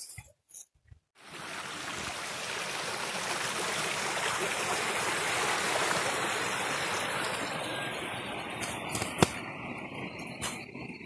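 Small stream flowing: a steady rush of water that starts abruptly about a second in, grows louder toward the middle and thins near the end. A single sharp click is heard about nine seconds in.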